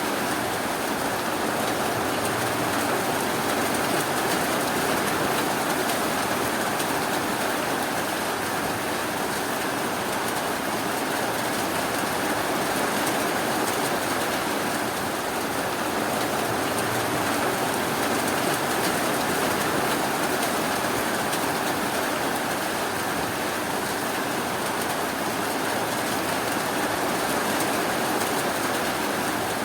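Steady rainfall, an even, unbroken wash of sound with no thunder.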